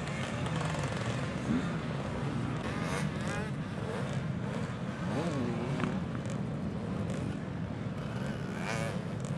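Motocross bike engines revving up and falling back over and over as the bikes are ridden round a dirt track.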